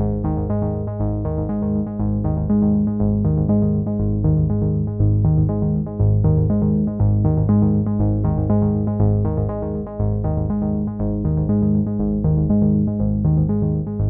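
Background music: a synthesizer and keyboard piece with a steady pulsing rhythm.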